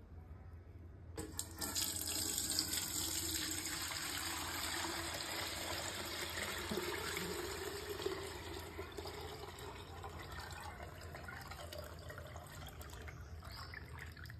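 Melted ghee, just heated to clarify it, poured from a steel pot through a steel mesh strainer into a steel container: a steady pouring splash that starts about a second in, eases off after the middle and stops near the end.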